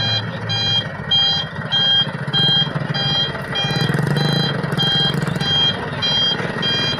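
Cargo truck's reversing alarm beeping steadily, a little under two beeps a second, over its diesel engine running as the truck backs up. The engine grows louder around the middle.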